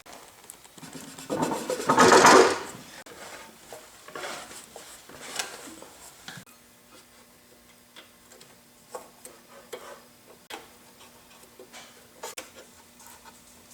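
Metal motor parts being worked and handled: a loud rub or scrape about two seconds in, lighter scrapes after it, then a run of small metallic clicks and taps over a faint steady hum.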